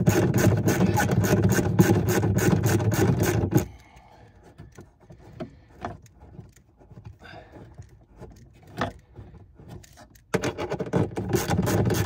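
Ratchet wrench clicking rapidly as it turns out the 13 mm bolts holding a boot latch. It runs in two spells, one stopping just before four seconds in and another starting about two seconds before the end, with lighter scattered clicks and taps between.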